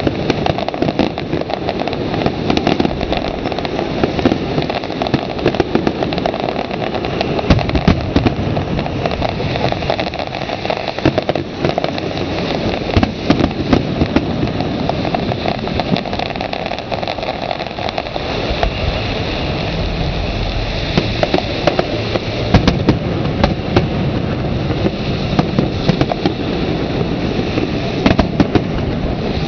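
Fireworks display: a continuous barrage of bangs and crackling as many shells burst in quick succession.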